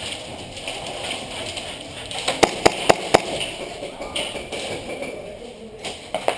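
Airsoft gun firing: four sharp pops in quick succession, about four a second, about two and a half seconds in, then two more near the end.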